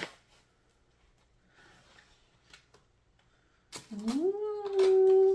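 A woman's long drawn-out "ooh" of delight that rises in pitch and is held steady, starting near the end. Before it come faint rustles of a cardboard sleeve as an eyeshadow palette is slid out of it.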